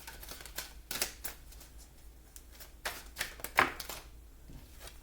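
Tarot cards being handled and laid down on a table: a string of sharp taps and light slaps, the loudest about three and a half seconds in.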